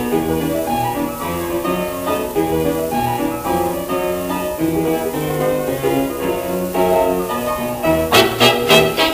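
1926 jazz dance-band recording played from a 78 rpm shellac record: the ensemble holds smooth sustained chords, then sharper, punchy rhythmic attacks come in about eight seconds in, over a faint hiss of record surface noise.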